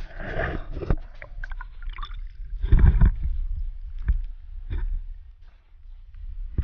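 Water splashing and sloshing, with heavy low rumble and irregular knocks, loudest about three seconds in.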